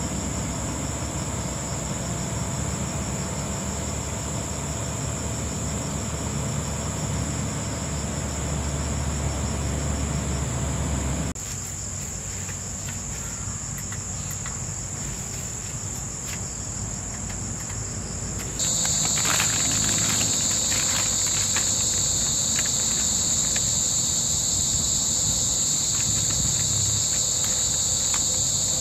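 Steady, even chorus of insects trilling high. A low steady rumble underneath stops abruptly about eleven seconds in, and about two-thirds of the way through the insect chorus jumps abruptly louder.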